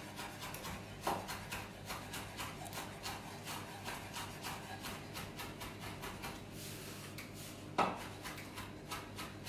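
Kitchen knife finely chopping rosemary leaves on a wooden cutting board: a run of quick, light taps, several a second, with a louder knock about a second in and another late on.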